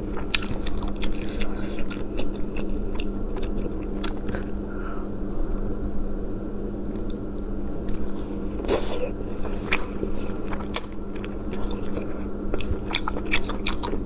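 Close-miked eating sounds: chewing and sucking shellfish meat out of thin shells, with many short wet clicks and smacks, one louder near the middle, over a steady low hum.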